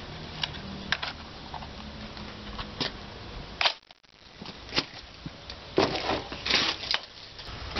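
Handling noise from a WE G36 gas-blowback airsoft rifle: scattered light clicks and knocks as it is turned in the hands, then a cluster of louder knocks and rustles around six seconds in as it is laid into its cardboard box on plastic wrap.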